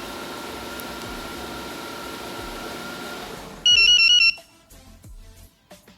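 Chevrolet Aveo engine running under remote start, cutting off about three and a half seconds in as the StarLine alarm shuts it down. At the same moment the StarLine key fob plays a short, loud melody of alternating high beeps, confirming the engine stop.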